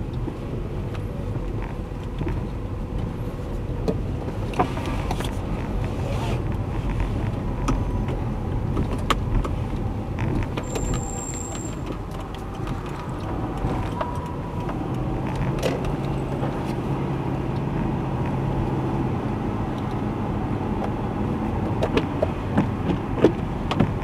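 Car interior driving noise picked up by a dashcam: a steady rumble with scattered clicks and knocks.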